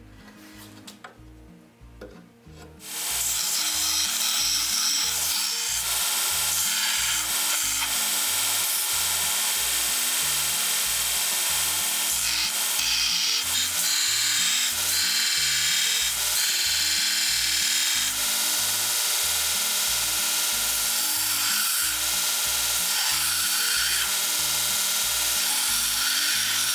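Steel piece for a buggy seat iron being ground on a vertical belt grinder: a loud, steady grinding hiss that starts about three seconds in and keeps going, with background music with a steady beat underneath.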